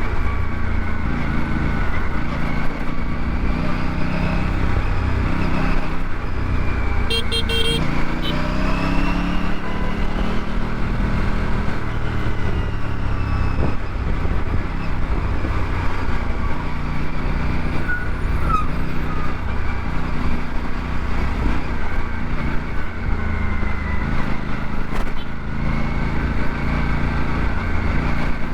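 Aprilia RS 457's parallel-twin engine on the move, the revs rising and falling as the bike accelerates, eases off and shifts.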